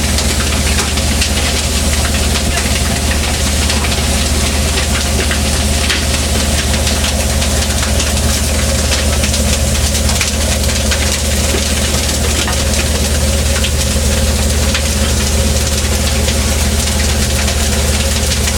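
A fishing boat's engine running steadily, a deep even hum with noise over it.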